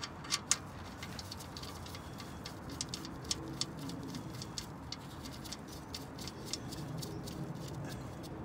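Irregular light clicks and ticks from a gloved hand working at the oil pan's drain plug, over a steady low hum. The two sharpest clicks come in the first half-second.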